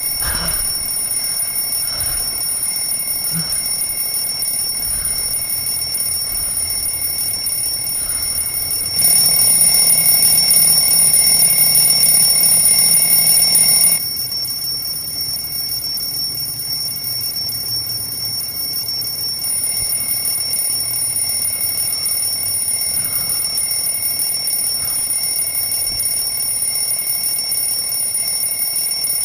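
Alarm clock ringing continuously, a steady high-pitched ring that gets louder for a few seconds about nine seconds in, then drops back.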